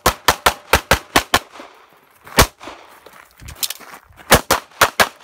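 Rapid semi-automatic pistol fire: a quick string of about eight shots in the first second and a half, a single shot a second later, then another fast string near the end.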